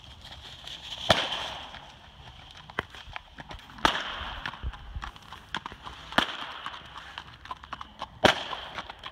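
A walking horse's hooves crunching and clicking on gravel in an irregular patter, broken by four loud sharp cracks spaced about two seconds apart.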